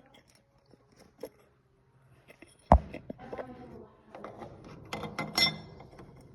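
Keypad deadbolt hardware being handled and fitted against the door: a few light clicks, a sharp knock a little under three seconds in, then rattling and clicking of the metal parts.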